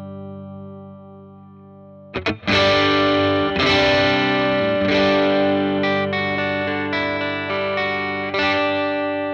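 Fender Stratocaster electric guitar played through a Dr. Z Maz 38 Senior Reverb 2x12 valve combo amp. A held chord fades away, then about two seconds in a few quick picked strokes lead into a run of ringing chords that change about every second.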